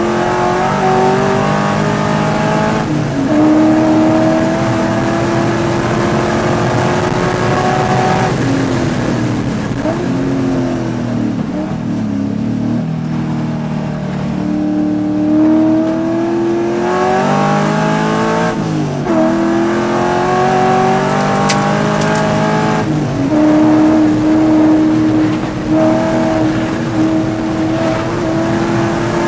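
Race car engine heard from inside the cabin, under hard acceleration. Its pitch climbs and drops back at upshifts about 3, 8 and 23 seconds in. Around 10–12 seconds and again around 19 seconds it slows with quick throttle blips on the downshifts into corners, then pulls up through the revs again.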